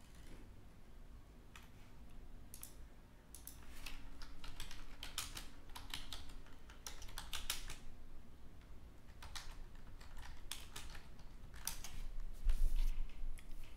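Typing on a computer keyboard: irregular runs of quick key clicks with short pauses between them, and a low bump near the end.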